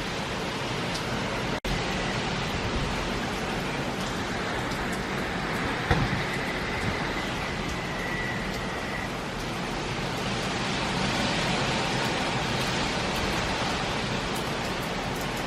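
Steady rush of hurricane wind and rain, with one brief knock about six seconds in.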